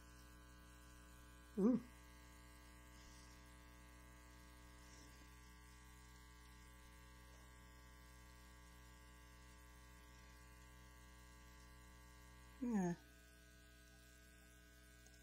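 Steady electrical mains hum with many overtones, at a low level. Twice, about two seconds in and near the end, a brief vocal sound from a woman, the second falling in pitch.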